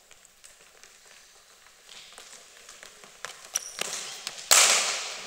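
A run of light steps and knocks, then one loud crack of a cricket bat striking the ball in an indoor net, ringing on in the sports hall's echo.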